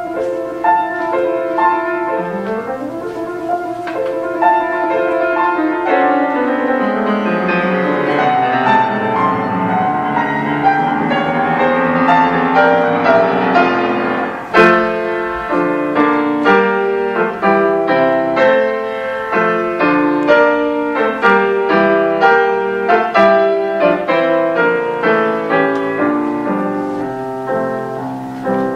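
Piano music with rising runs early on that build up, then a sharp accented chord about halfway through, after which it goes on in quick repeated notes.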